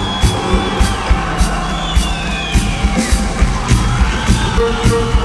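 A live rock band playing an instrumental passage: a steady drumbeat with cymbal and snare hits about twice a second under bayan (button accordion) and bass, with high sliding notes gliding over the top.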